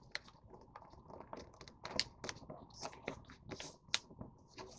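A sheet of printer paper being folded by hand on a table: faint, irregular rustling and soft clicks as it is handled and creased, with a crisper stroke about two seconds in and again near four seconds.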